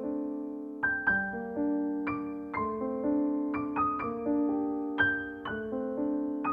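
Background piano music: a gentle melody of single struck notes, each ringing and fading as the next comes in.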